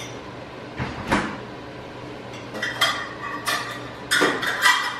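Kitchen work sounds: a couple of short knocks about a second in, then dishes and utensils clinking and clattering on the counter in the second half.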